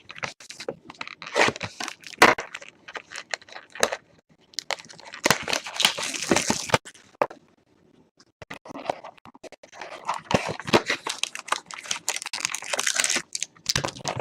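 Trading card pack wrappers crinkling and tearing open while cards are handled, in a run of clicks and rustles. Longer stretches of crinkling come around the middle and again near the end.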